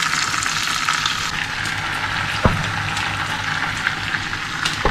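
Ham slices sizzling in a little oil in a nonstick frying pan: a steady hiss, with a sharp tick about halfway through and another near the end.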